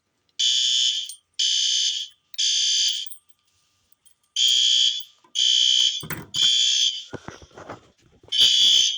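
System Sensor L-series P2RL fire alarm horn strobes sounding the temporal-three evacuation pattern, set off by a manual pull station: three loud, shrill horn blasts, a pause, three more, and the next set starting near the end. There is some clatter in the gaps after the second set.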